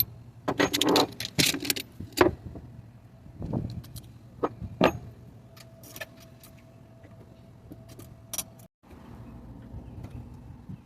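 Metal hand tools clicking and clinking against a boat engine's thermostat housing as it is opened for a thermostat check, in a string of separate sharp clinks over a steady low hum. The sound cuts out briefly near the end.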